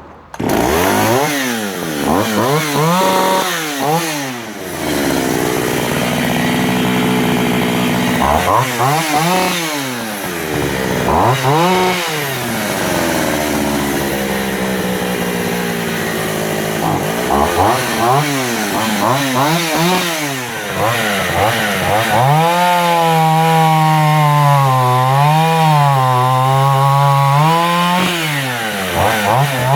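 Oleo-Mac 945 two-stroke chainsaw starting, then revved repeatedly in quick rising-and-falling blips with short spells of idle between. Over the last several seconds it is held at high speed, the pitch wavering as the chain cuts into wood.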